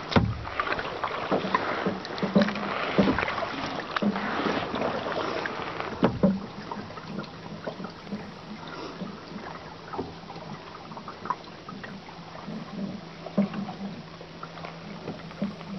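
Kayak paddling: paddle strokes splashing and water slapping against the plastic hull, with a few low thumps, busier in the first half. From about six seconds in a faint steady low hum joins.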